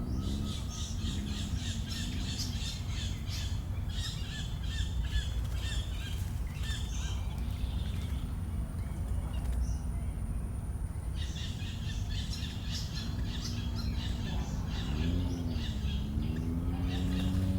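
Many birds chattering with rapid high chirps in two long bouts, falling quiet for a few seconds in the middle, over a steady low rumble.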